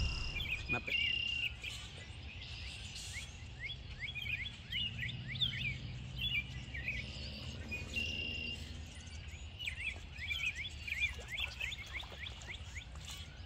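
Birds calling: many quick short chirps, with a couple of longer held whistled notes about a second in and again near the middle, over a steady low background rumble.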